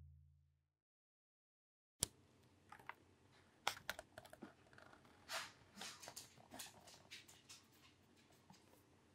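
Faint, scattered clicks and light taps of a Shih Tzu's claws on a wooden floor as the dog moves about and sniffs around a pet carrier, starting about two seconds in. Before that, the last of a deep booming music hit dies away.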